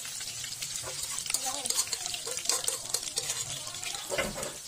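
Vietnamese spring rolls frying in hot oil in a pan: a steady crackling sizzle with light clicks as chopsticks turn them. A dull low knock comes near the end.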